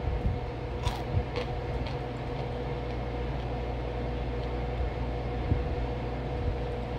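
Steady low machine hum in the room, with a few short crunches about a second in as a chunk of cornstarch is bitten and chewed.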